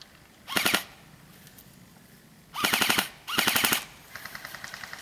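Airsoft rifles firing on full auto: a short rattling burst about half a second in, then two longer loud bursts back to back, then a quieter, longer rattle of rapid fire from a second gun farther off near the end.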